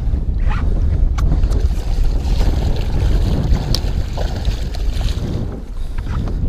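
Wind buffeting the microphone, with a hooked musky thrashing and splashing at the water's surface for a few seconds midway, plus a few sharp clicks.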